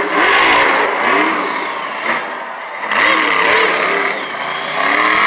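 Monster truck engine revving hard across a stadium, its pitch sweeping up and down as the throttle is blipped. The roar swells twice, easing off around the middle.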